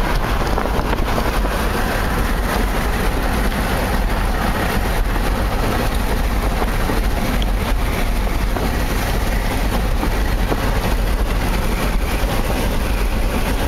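Steady road and wind noise from a vehicle cruising at highway speed, heard from inside the cab.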